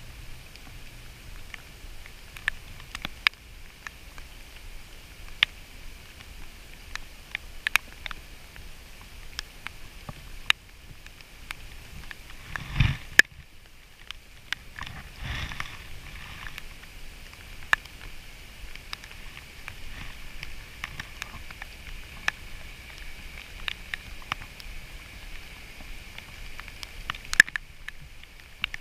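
Steady rain falling on a river, with scattered sharp taps of raindrops striking close by. Twice, about midway through, there is a louder bump.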